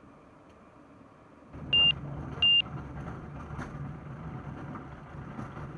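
Two short, loud high-pitched electronic beeps about a second and a half in, as the light aircraft's cockpit noise comes up: the steady drone of its Rotax 912 engine and airflow, with a few faint clicks.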